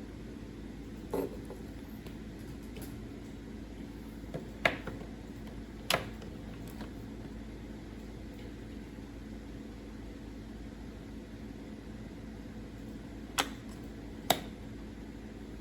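About six short, sharp clicks scattered over a steady low hum: LEGO bricks being handled and snapped together.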